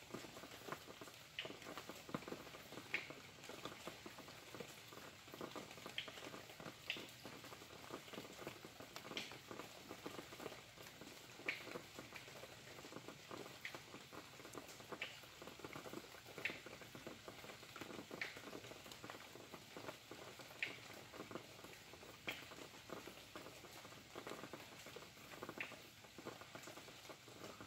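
Faint rain pattering steadily, with louder single drops ticking every second or two.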